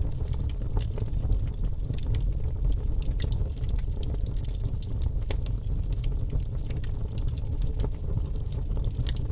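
Open wood fire burning, crackling and popping in many short irregular snaps over a steady low rumble.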